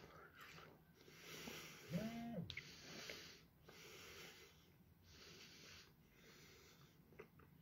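A man breathing audibly in and out through his nose about five times while chewing a mouthful of candy twist, with a short hummed 'mm' about two seconds in.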